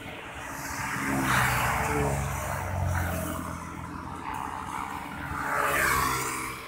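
Road traffic and the engine of a moving vehicle, heard from inside the vehicle: a steady low engine hum, with the rush of traffic swelling twice, about a second in and again near the end.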